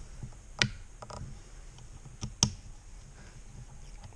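A few sharp clicks and small taps of metal mirror-mount hardware being handled, as a threaded piece is worked by hand into the mirror bracket and will not go in. The loudest click comes about two and a half seconds in.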